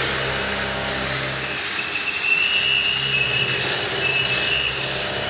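CNC machining center running a cutting program: a steady machine hum and workshop noise, with a high whine that comes in about two seconds in and lasts a couple of seconds.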